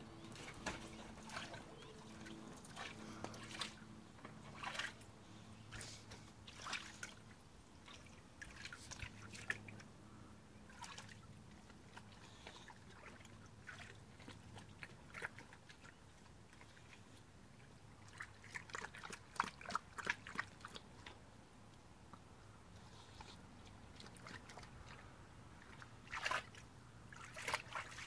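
A boxer dog wading and splashing in the shallow water of an inflatable paddling pool, nosing after fish: irregular sloshes and drips, busiest about two-thirds of the way through and again near the end.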